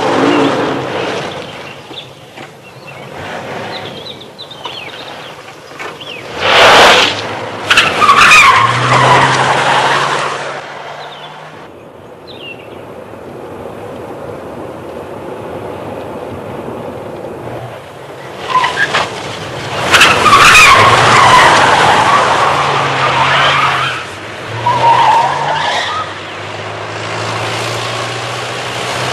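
Car engines running on the road, with two long stretches of loud tyre squealing and skidding, one about a quarter of the way through and one past the middle.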